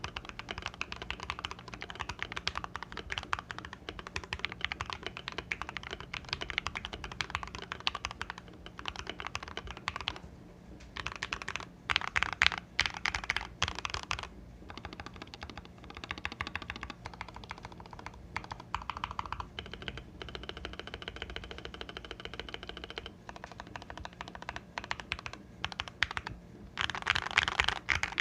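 Fast, continuous typing on a modded Keychron K6 mechanical keyboard with lubed Gateron Silver Pro linear switches, tuned and lubed stock stabilizers and Akko ASA-profile keycaps: rapid key clacks with a couple of brief pauses and a louder flurry near the end.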